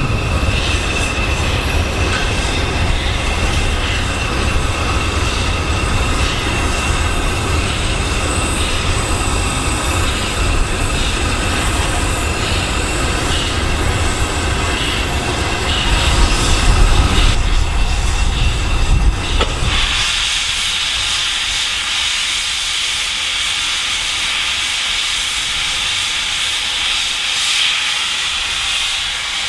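LNER B1 4-6-0 steam locomotive 61306 'Mayflower' and its train moving slowly past: a low rumble from the wheels on the rails with a steady high squeal. About two-thirds of the way through the rumble drops away and a loud, steady hiss of escaping steam takes over.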